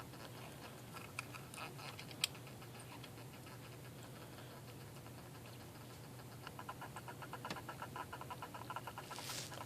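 Purple pincher hermit crab chirping in rapid trains of short pulses, sparse at first and growing denser and louder about two-thirds of the way in, with one sharp click about two seconds in. The chirping goes with a stressed crab in a shell fight.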